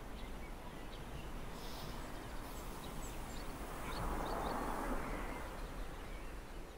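Quiet outdoor ambience: a steady hiss with a few faint, short bird chirps about two to three seconds in, and a soft swell of background noise a little later.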